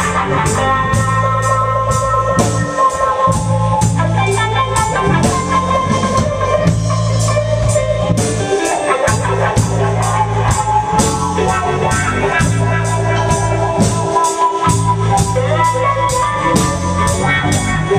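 Live band playing: electric guitar with held notes over bass and a drum kit keeping a steady beat of about three strokes a second. The bass drops out briefly three times.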